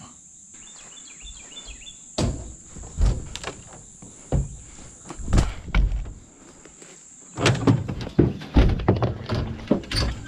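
Irregular knocks and thumps of gear being handled around a pickup truck and its dog box, coming thicker near the end, over a steady high drone of insects. A few short bird chirps come in the first two seconds.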